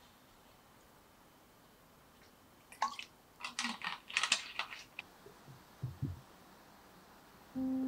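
A run of short crisp clicks and crackles lasting about two seconds, from a freshly poured glass of sparkling maesil-ade and the bottle being handled, followed by a soft low knock. Music with a steady humming tone starts near the end.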